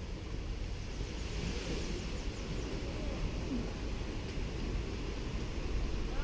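Gentle sea waves washing onto a sandy beach over a steady low rumble, with a swell of hissing wash about a second or two in.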